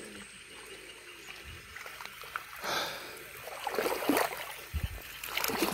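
Muddy water splashing and sloshing in a flooded rice paddy during hand transplanting of rice seedlings, in a few short, irregular splashes.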